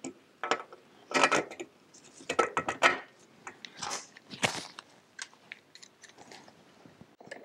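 Carburetor being slid onto its mounting studs on a kart engine and a T-bar wrench picked up off a metal bench: a scatter of short clinks, clicks and scrapes of metal parts and tools being handled.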